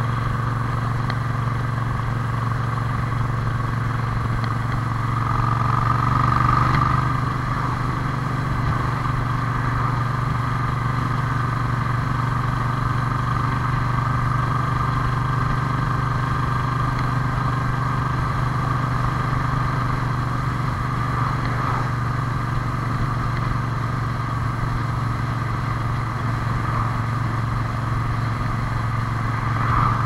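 Moto Guzzi V7 Classic's air-cooled transverse V-twin running steadily at road speed through twin megaphone exhausts, heard from the rider's seat. It grows briefly louder about six seconds in.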